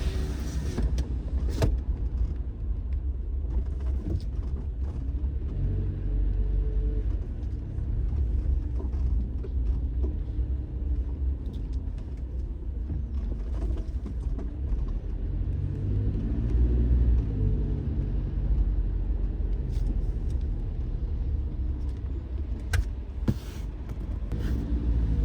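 Car driving on the road: a steady low rumble of engine and tyres, with the engine note rising and falling as the car speeds up and slows, and a few scattered clicks.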